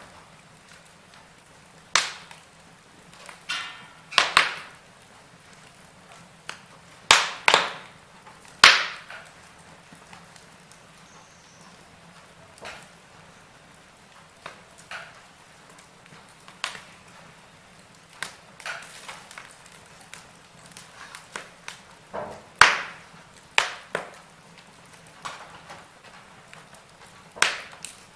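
Wood fire burning in a fireplace, crackling with irregular sharp pops and snaps, some loud and some faint, at uneven intervals.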